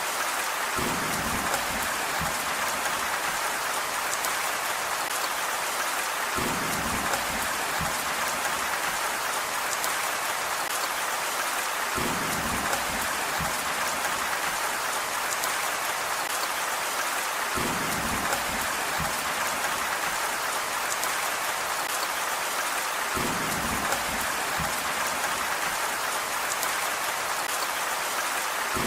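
Steady, dense rain hiss. About every five and a half seconds a short low rumble rises under it and fades within a second or two, five times in all, evenly spaced as in a looped recording.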